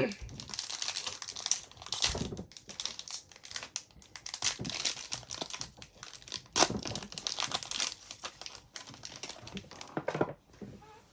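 Plastic foil wrapper of a 2023-24 Upper Deck hockey card pack crinkling as it is torn open and handled, an irregular crackle with a few louder rustles.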